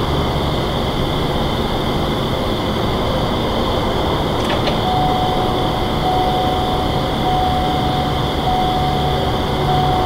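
Night ambience lifted by a recorder's auto-level gain: the steady hum of an air-conditioning unit with insects buzzing. A faint steady tone joins about halfway through.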